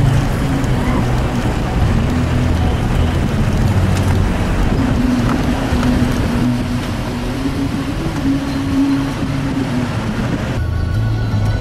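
A car driving along a road: a steady engine drone with road and wind noise, the engine's pitch shifting as it drives. The sound changes abruptly shortly before the end.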